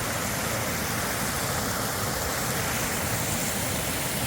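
Rushing creek water: a steady, even rush of flowing water.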